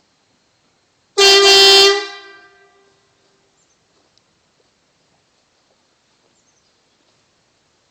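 A single blast of vehicle air horns, under a second long, holding a steady pitch with several tones sounding together. It cuts off sharply, and its echo trails away over about a second.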